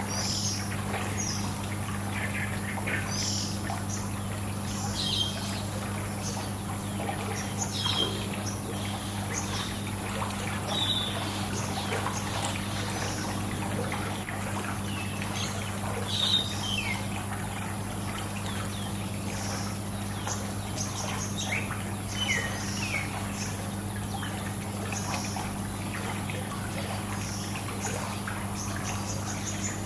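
Birds chirping in short, scattered calls over a steady trickle of pool water, with a constant low hum and a faint steady high whine underneath.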